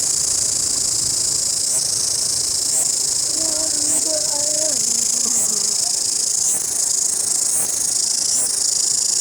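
Cicadas singing in a loud, continuous high-pitched chorus that swells roughly once a second.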